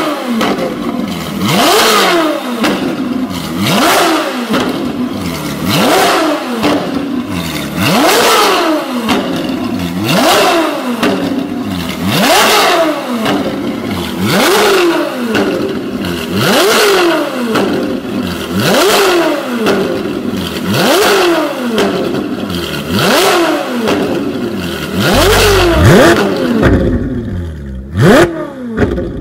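Ferrari 458 Italia's V8 revved over and over through a Fi valvetronic exhaust with the valves open, about one rev every two seconds, each rev climbing sharply and falling away. Near the end a deeper rumble comes in.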